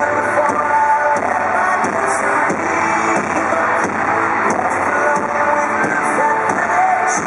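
Live pop-rock music in an arena: a band with electric guitar behind a sung melody, heard loud and dense from within the audience.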